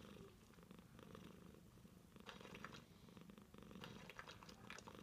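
Domestic cat purring softly and steadily.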